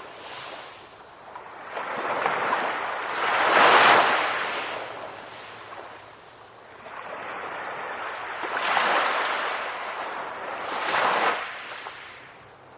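Ocean waves rolling into shore and washing back, in slow swells of surf. The loudest wave breaks about four seconds in, two smaller ones follow later, and it dies down near the end.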